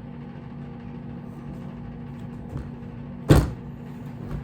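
Steady low mechanical hum with a single sharp knock about three seconds in, and a couple of fainter knocks around it.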